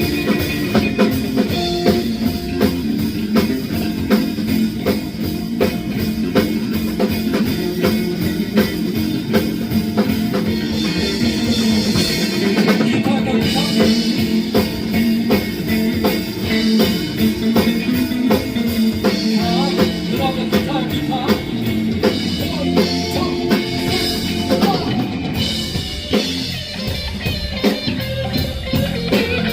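Live rock band playing an instrumental stretch: a drum kit keeps a steady beat under guitars.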